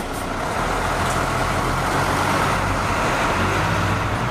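Camper truck driving on, its engine running with a steady rumble under even road noise.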